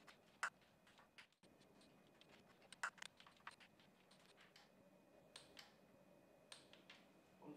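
Faint, irregular sharp clicks of a torque wrench and socket being fitted to and worked on timing cover bolts.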